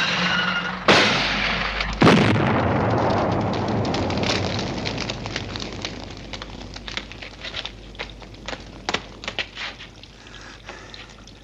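Two explosions about a second apart, the second the louder, followed by a long fading rumble with crackling and scattered pops that thin out over several seconds. A short high held tone sounds just before the first blast.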